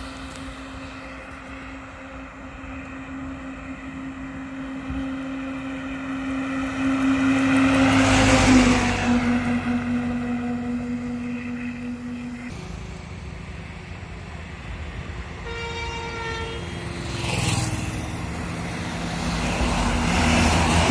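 Diesel goods trucks driving past on a highway, one after another. Each engine grows louder, peaks and drops in pitch as it goes by, about 8 seconds in and again near 18 seconds, with a third truck closing in at the end. A vehicle horn sounds briefly a little past halfway.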